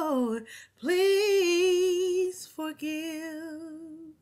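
A solo voice singing a slow prayer unaccompanied: a falling note, then two long held notes with vibrato, the last fading out near the end.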